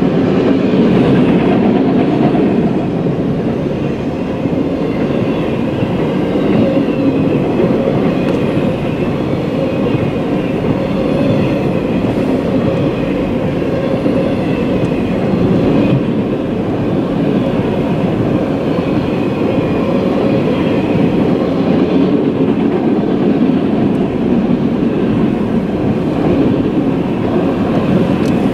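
Autorack cars of a CSX freight train rolling past a grade crossing, the wheels on the rails making a loud, steady, unbroken noise, heard from inside a car.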